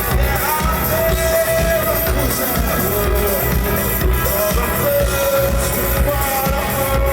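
A live rock band playing a song with a steady, driving beat and sustained melody lines over it, as heard through a concert recording.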